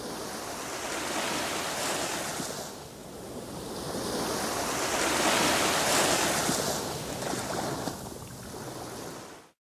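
Ocean waves washing in, a surf sound effect: the rush swells twice, the second time louder, then cuts off suddenly near the end.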